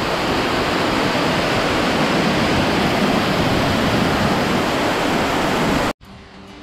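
Lake outflow water pouring down a stone wall in a steady, loud rush of falling water and spray. The rush cuts off suddenly about six seconds in, and quiet music follows.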